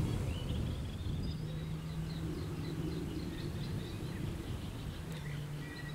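Outdoor ambience: small birds chirping and twittering over a low rumble, with a faint steady low hum that comes and goes.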